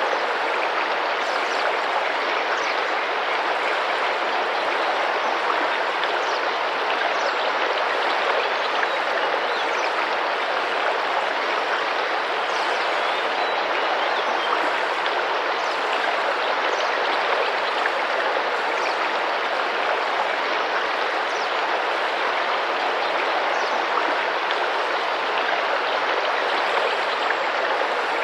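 Tropical river water flowing and splashing over rocks, a steady, even rush.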